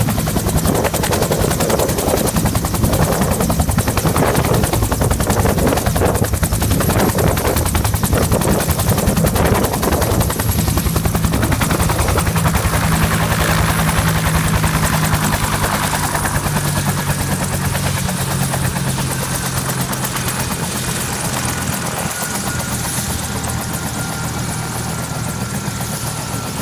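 Helicopter rotor and engine running, a steady fast chop with a steady drone beneath, growing gradually quieter over the last third.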